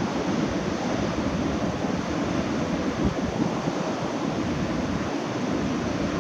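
Strong storm wind and breaking surf make a steady rushing noise, with gusts of wind buffeting the microphone.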